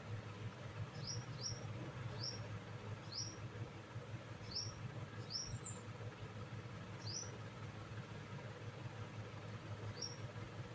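A small bird chirping, about eight short high chirps at irregular intervals with a longer gap near the end, over a steady low hum.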